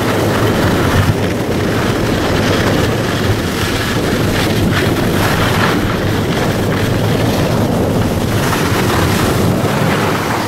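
Steady rush of wind on the microphone of a moving skier, mixed with skis sliding and scraping over snow.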